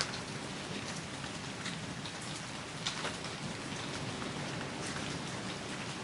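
Heavy rain falling steadily, a dense even hiss with scattered louder drops striking close by.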